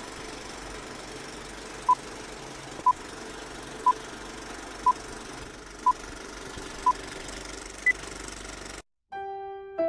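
Old-film countdown leader: a film projector whirring and clattering steadily, with seven short beeps a second apart, six at one pitch and the last higher. The sound then cuts out, and piano music begins near the end.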